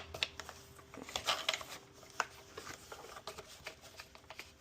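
Hands handling and fitting plastic water-softener valve and bypass parts: scattered small clicks, taps and rustling.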